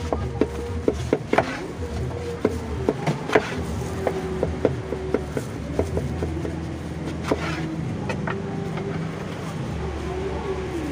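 A knife cutting through a thick martabak Bangka and knocking on a wooden cutting board: a run of sharp, irregular knocks that stop after about seven seconds. A steady low hum runs beneath.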